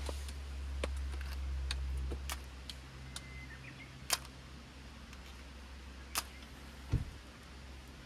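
A low steady hum, strongest in the first couple of seconds, with scattered sharp clicks and knocks.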